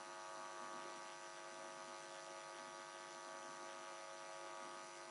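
Faint, steady electrical hum over a low hiss: background noise of the recording, with no other sound.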